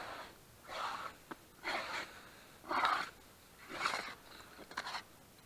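Gloved hand sweeping sawdust off a freshly carved wooden chair seat in short rustling strokes, about one a second.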